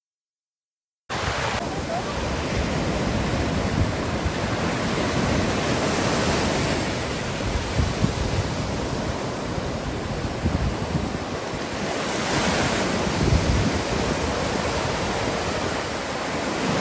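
Ocean surf breaking and washing up the beach in a steady rush, with wind buffeting the microphone. The sound starts abruptly about a second in.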